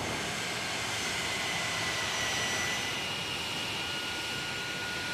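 Jet engines of a KC-135 Stratotanker running as it taxis to its stand: a steady rushing noise with several high whining tones.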